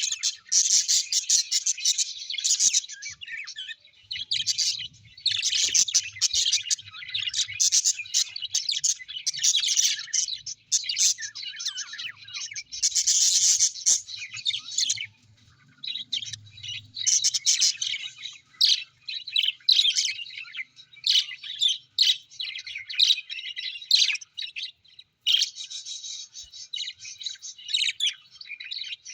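Several small birds chirping and twittering together in rapid, overlapping bouts of high-pitched calls, with brief pauses between bouts.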